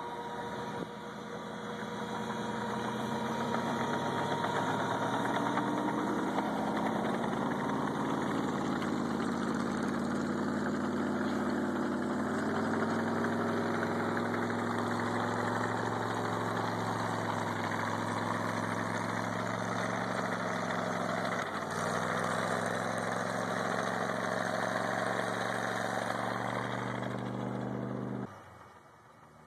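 Four-track snowcat's engine running steadily under load as the machine ploughs through deep snow, its note rising and falling a little. The sound drops away suddenly near the end.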